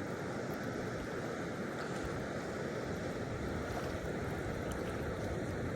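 Steady rush of flowing river water, an even noise with no break or change.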